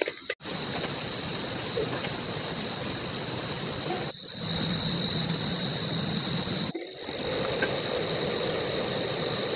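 Night insects keeping up one steady, high, thin trill over a constant hiss, breaking off briefly a few times.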